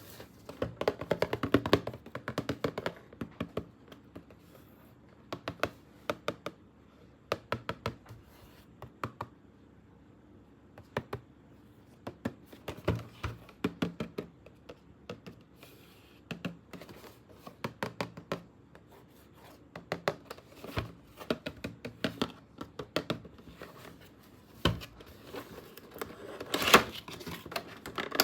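Hands handling hard plastic toys and packaging: short clusters of sharp clicks, taps and light knocks, a burst every second or two.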